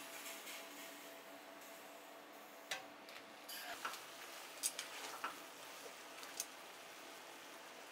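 Metal tongs clicking and tapping against a frying pan while spaghetti is tossed in a cream sauce: a handful of light clicks, most of them between about three and six seconds in, over a faint steady kitchen hum.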